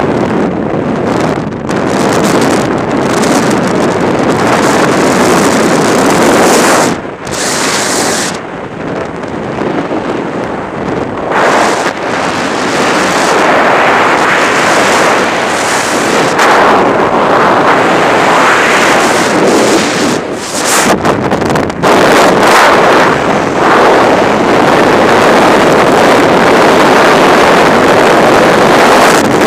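Freefall wind rushing hard over a skydiver's camera microphone, surging and easing as the jumper moves, with brief dips about a quarter and two-thirds of the way through.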